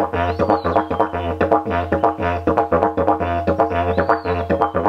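Didgeridoo drone on a steady low fundamental, with its overtones shaped into the repeating "Dowai-Dowai-Dowai-Dowa-Dowa" phrase. It is played with circular breathing, the breaths taken on the "Wa" syllables.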